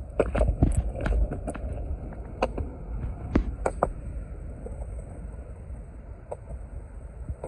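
Penny board rolling on a concrete sidewalk: a steady low rumble with sharp clacks, many in the first few seconds and only a few later.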